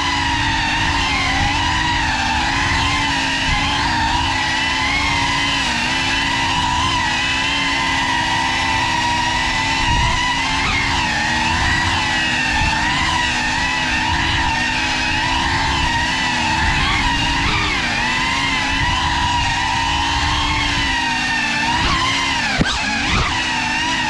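Steady whine of the GEPRC CineLog 35 cinewhoop's brushless motors and ducted propellers in flight. The pitch wavers up and down with throttle changes, over a low rush of prop wash.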